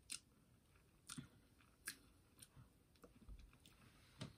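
Faint chewing of a mouthful of blackberry fruit pie, with about five short sharp clicks of the mouth and pastry spread through.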